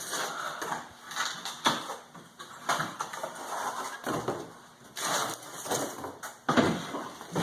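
Cardboard box and packaging being torn open and handled: irregular scraping and rustling with several sharp knocks.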